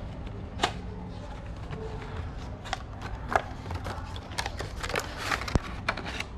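A small cardboard box being opened by hand, its flaps pulled back and a plastic-packed item drawn out: scattered crinkles and rustles with a few sharp clicks.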